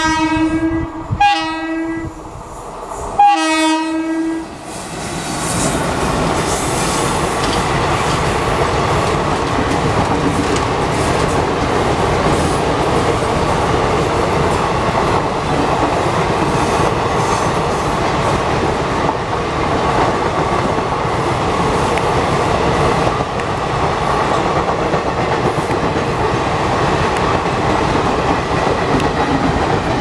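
Indian Railways WAP-4 electric locomotive sounding its horn in three short blasts in the first few seconds. The train then rushes past, its passenger coaches rumbling and clattering over the rail joints steadily for the rest.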